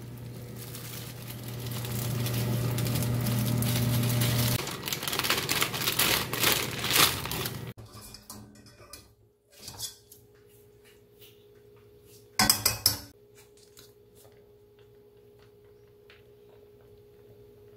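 Cooking noodles in a stainless steel pot: a steady rushing noise with a low hum for the first several seconds, then scattered clinks and knocks of the pot and utensils, with one louder clatter about two-thirds of the way in.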